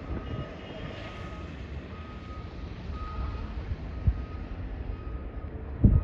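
Low, steady rumble of vehicles on a slushy snow-covered road, with a repeated electronic beep sounding in short pulses like a vehicle's reversing alarm. Wind buffets the microphone, hardest near the end.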